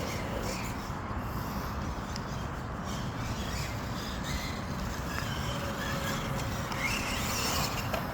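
Steady rustling and rumbling as the camera is carried on foot through the woods, with faint whines of small electric RC crawler motors now and then, including a short rising whine near the end.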